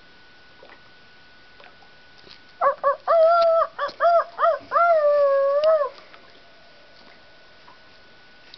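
A person howling in imitation of a wolf, loud and close to the microphone: a run of short, high broken calls starting between two and three seconds in, then one longer wavering howl that falls away about six seconds in.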